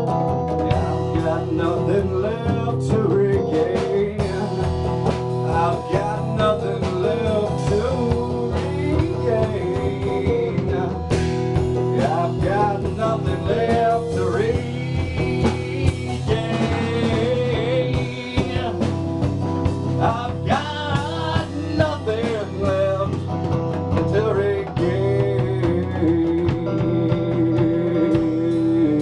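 A man singing while playing a solid-body electric guitar: a live song with sustained, bending vocal lines over guitar chords.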